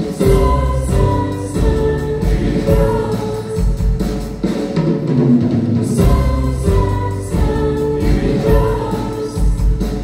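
A group of young vocalists, girls and a boy, singing a song together in harmony over a live band with piano and drum kit.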